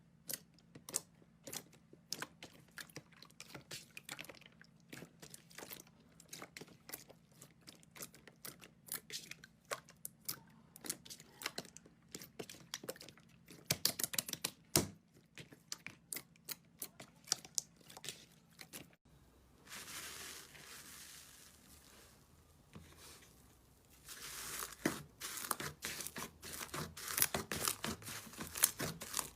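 Slime being squeezed, poked and stretched by hand, giving a dense run of small crackling pops. About 19 s in the sound cuts to a different clip: a smoother tearing stretch for a few seconds, then more crackling.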